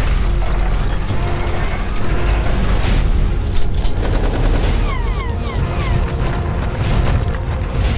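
Rapid bursts of gunfire sound effects, over a steady low bass bed of music. About five seconds in come four quick falling whizzes, like bullets flying past.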